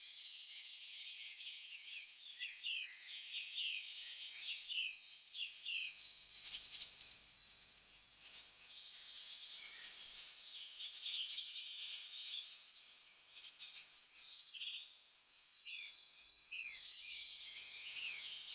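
Birds chirping and twittering, many short, quick high calls overlapping in a busy chorus.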